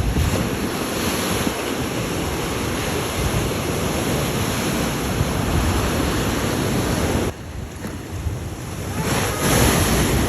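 Ocean surf washing with wind buffeting the microphone. The noise drops away sharply about seven seconds in, then swells back up about two seconds later.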